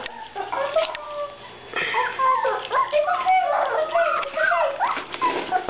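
A litter of Petite Golden puppies whining and yipping, many short cries overlapping and sliding up and down in pitch, loudest from about two seconds in.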